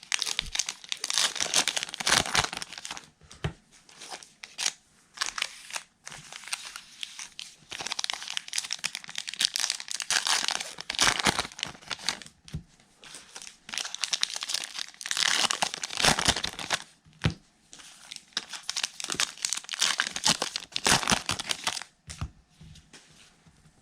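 Plastic wrapping crinkling and tearing in irregular bursts as a baseball card blaster box and its packs are ripped open, with brief pauses between bursts.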